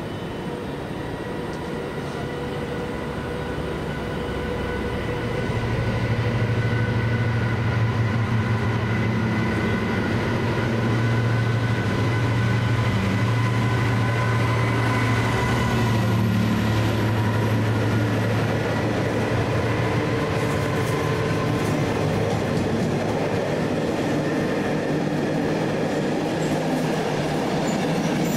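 A train passing at close range. It gets louder over the first few seconds, then runs loud and steady with a strong low hum and several steady whining tones.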